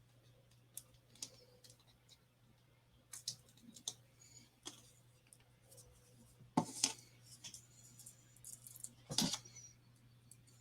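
Small paper-crafting handling sounds: scattered faint clicks and crackles of paper backing being peeled from adhesive foam pads and pressed onto card. A couple of louder crackles come about two-thirds of the way through and again near the end.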